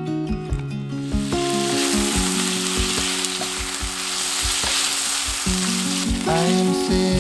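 Chicken pieces sizzling as they fry in a pan, turned with a wooden spatula. The sizzle starts about a second in, over soft background music.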